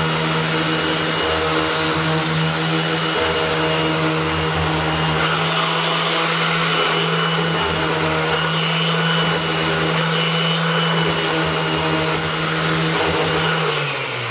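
Makita cordless random orbit sander running steadily on a wooden board, a constant motor hum with the rasp of the sanding pad. Just before the end it is switched off and its pitch falls as it winds down.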